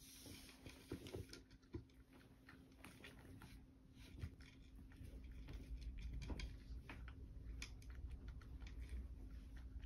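Cat eating dry kibble: faint, irregular crunching with small clicks of the pellets.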